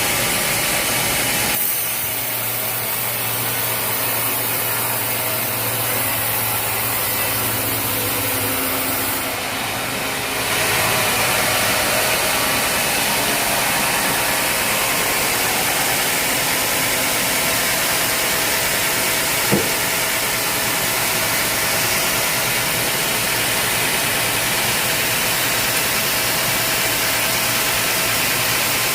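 Sawmill machinery running steadily, a dense engine-and-machine noise that changes abruptly twice in the first ten seconds or so, with one short sharp click near the middle.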